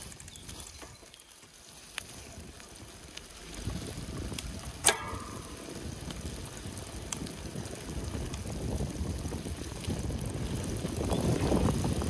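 Mountain bike being ridden: a low rumble of tyres rolling and wind, setting in after a few quieter seconds and slowly growing louder, with one sharp click about five seconds in and a few faint ticks.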